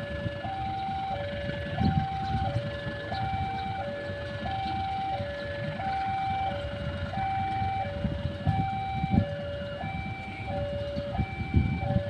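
Railway level-crossing warning alarm sounding a steady two-tone hi-lo pattern, about one high-low pair every 1.3 seconds: the signal that a train is approaching the crossing. A low rumble runs underneath.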